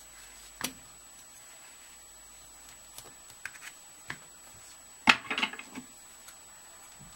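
Small scissors snipping organza and tulle around embroidered wings: a few scattered snips, then a quick run of several louder snips about five seconds in.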